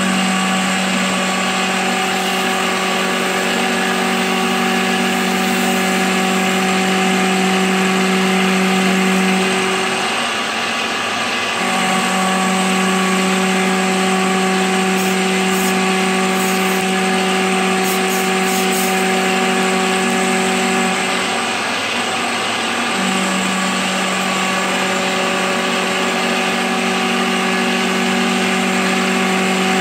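CNC milling machine's end mill cutting a pocket in a cast iron block: a steady, pitched cutting tone that falls away twice for about two seconds, about ten and about twenty-one seconds in.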